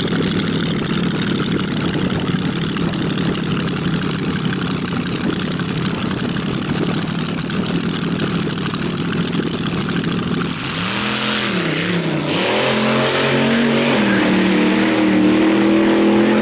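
Slingshot dragster's open-exhaust engine running loud on the start line, then launching about ten seconds in. The engine note dips and climbs twice right after launch as the driver pedals the throttle, then rises steadily as the car pulls away down the strip.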